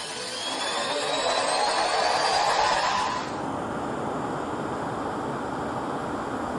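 F-22 Raptor's F119 turbofan engine spooling up, a rising whine over a loud rush of turbine noise. About halfway through, the sound changes suddenly to a duller, steady rumble with the high whine gone.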